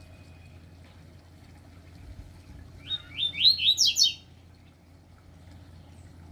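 A male songbird sings one short, fast phrase of rising chirped notes, starting about three seconds in and lasting about a second and a half, over a faint steady hum.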